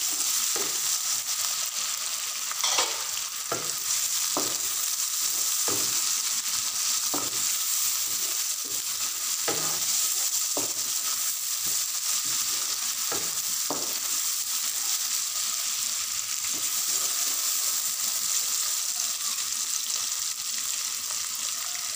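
Chopped tomatoes sizzling in hot oil with browned onions and green chillies in a non-stick pan. A spatula stirs and scrapes them in short strokes, about one a second through the first half and fewer after that.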